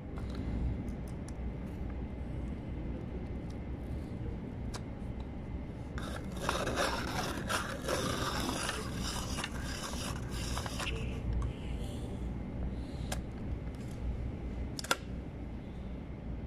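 Staedtler hand-cranked desk pencil sharpener: a few sharp clicks from its spring-loaded pencil clamp, and a rough scraping grind for about five seconds in the middle as the crank turns the cutter against the pencil.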